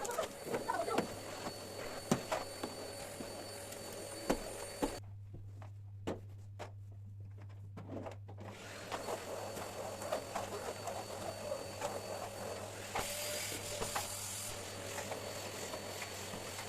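Scattered light knocks, taps and handling sounds of household cleaning, with a short hiss about two-thirds of the way through.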